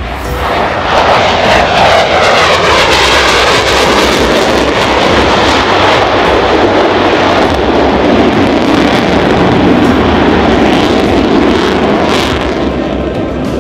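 Jet noise from a Sukhoi Su-30MKM fighter's twin engines as it flies past in a display manoeuvre. A loud, steady jet roar swells about a second in, with a sweeping, whooshing shift in tone over the next few seconds, and eases slightly near the end.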